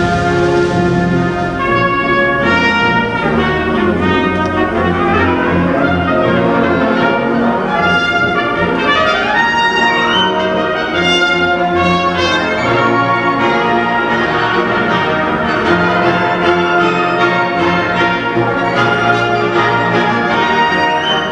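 Concert wind band playing with a solo trumpet: a full brass-heavy sound of held notes, with quick rising runs of notes about halfway through.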